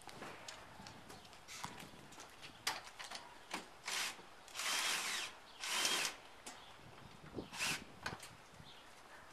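Cordless drill run in several short bursts, the longest near the middle, with scattered clicks between them.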